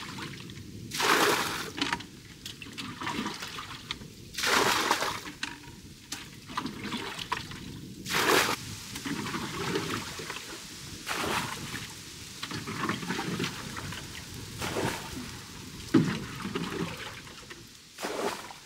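Rainwater being bailed out of a small wooden rowing boat: a scoop of water splashes out over the side about every three to four seconds, six times, with trickling and dripping in between.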